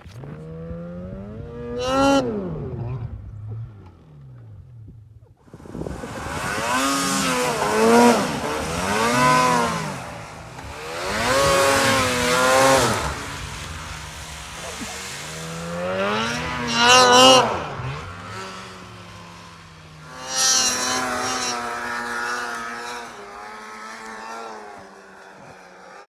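Snowmobile engines revving hard and easing off again and again as the sleds ride through deep powder. The pitch rises and falls in repeated surges, with a hiss of snow behind it.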